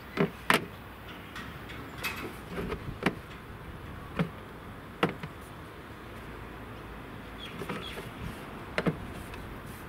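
Plates clacking and scraping against the hard plastic trim panel of a Mitsubishi Pajero's rear door as they are tried in its storage pocket. It comes as a handful of separate sharp knocks over a faint steady background.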